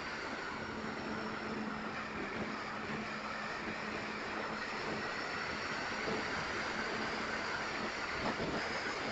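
Wind rushing steadily over a small onboard camera on an E-flite Twin Otter RC model plane in flight. The steady hum and whine of its twin electric motors and propellers runs underneath.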